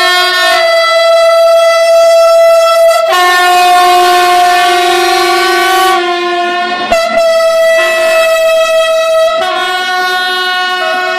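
SNCF BB 15000 electric locomotive's two-tone horn held on, alternating between its low and high notes every couple of seconds as the train passes, over the noise of the coaches rolling by.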